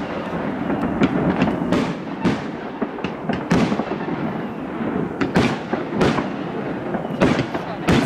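Aerial fireworks bursting: a dozen or so sharp bangs at irregular intervals, over a steady rumble.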